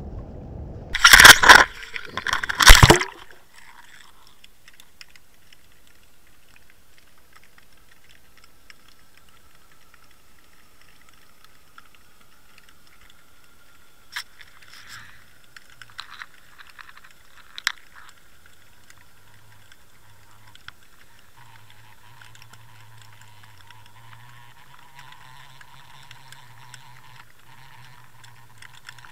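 Two loud bursts of noise in the first three seconds, then a faint, muffled steady hiss with a few small clicks, heard through a Water Wolf underwater camera on a fishing line.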